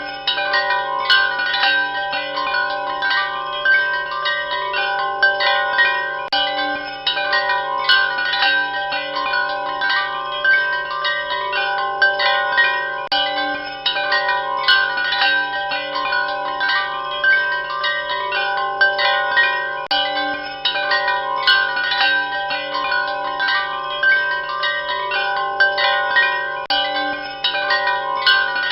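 Wind chimes ringing continuously: many overlapping strikes at a few fixed pitches, several a second, each note ringing on under the next.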